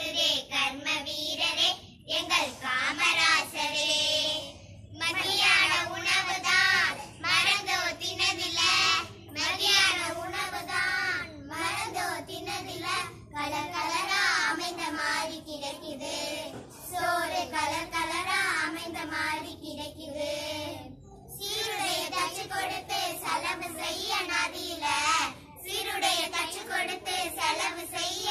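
A small group of young schoolgirls singing a song together, phrase after phrase with short pauses for breath between.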